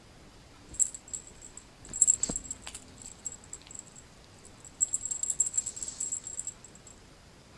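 Feather wand cat toy jingling and rattling in quick bursts as a cat bats, grabs and rolls with it: a brief jingle about a second in, a longer run about two seconds in, and a busier flurry from about five seconds.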